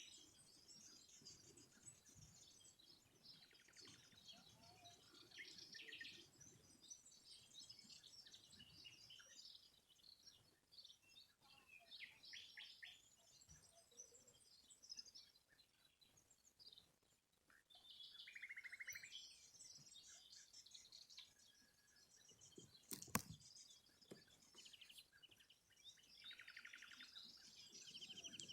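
Several small songbirds chirping and singing faintly, with repeated rapid trills among the chirps. A single sharp click sounds about 23 seconds in.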